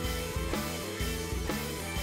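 Background music with drums and a steady beat of about two beats a second.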